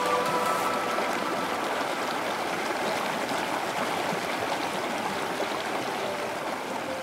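Mountain stream rushing over rock slabs: a steady rush of white water.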